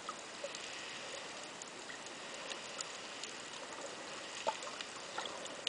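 Underwater ambience picked up by the camera below the surface: a steady hiss with scattered sharp clicks and crackles, the loudest about four and a half seconds in.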